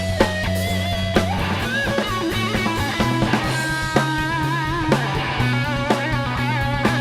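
Rock instrumental music: a wavering lead guitar line over bass and a steady drum beat, with a snare or kick hit about once a second.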